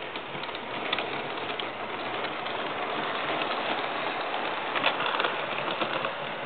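Märklin H0 model steam locomotive and coal wagons running along the track: a steady rattle of wheels and motor with scattered clicks, loudest about five seconds in as the train passes close.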